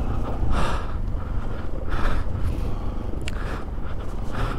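A rider breathing heavily, four breaths about a second and a half apart, over the low steady rumble of a motorcycle crawling along a rough track.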